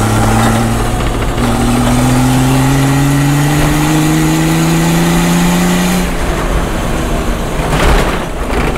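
BMW 525 TDS straight-six turbo diesel pulling hard through a gear, its note rising steadily for about six seconds, heard from inside the car's open cabin. The note then drops away as the throttle comes off.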